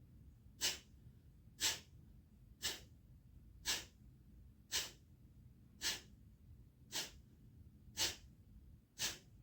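A person doing Kapalbhati breathing: short, sharp exhalations forced out through the nose, nine of them evenly spaced about one second apart. This is the slow pace of one breath per second meant for beginners and people with asthma.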